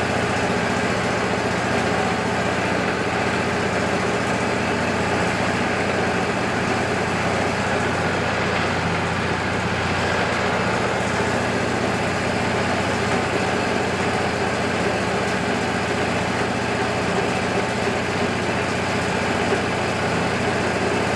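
Wood-Mizer LT40 band sawmill's engine running steadily, with no change in pitch or level.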